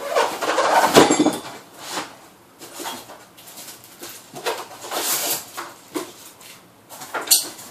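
Packaging being handled and unwrapped: irregular rustling and crinkling with scattered knocks, loudest about a second in, and a sharp click near the end.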